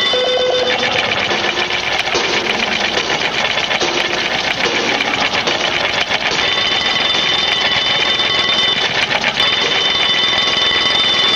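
Mechanical twin-bell alarm clocks ringing, several at once, the hammers rattling rapidly on the bells over steady high ringing tones. The rattle grows denser about a second in and eases back around six seconds.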